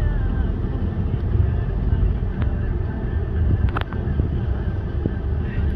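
Low, steady rumble of a car running, heard from inside the cabin, with a few light clicks a little over halfway through.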